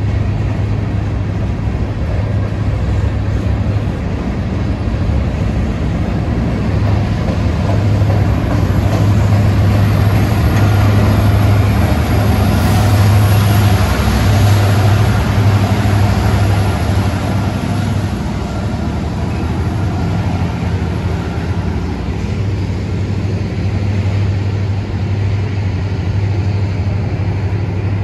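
Freight train rolling past with a steady rumble of steel wheels on rail and a low hum. About halfway through, the mid-train distributed-power locomotive, a Union Pacific SD70ACe, passes with its two-stroke V16 diesel running, and the sound swells, adding a faint high whine, then eases as the cars behind it roll by.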